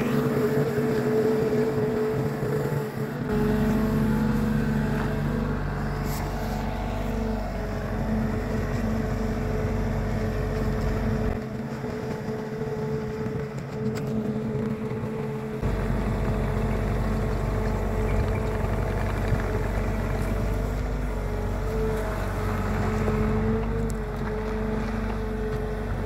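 Bobcat T66 compact track loader's diesel engine running steadily with a constant whine as the machine moves. A deeper rumble comes in about three seconds in, drops out for a few seconds midway, and returns.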